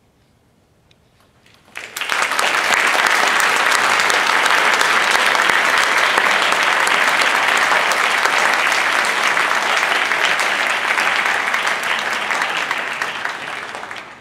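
Audience applauding, breaking out suddenly about two seconds in after a brief hush and fading away near the end.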